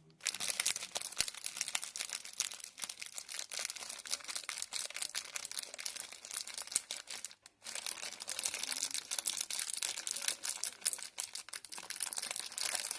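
Plastic spaghetti bag being crinkled, with dense rapid crackling that stops briefly about halfway through.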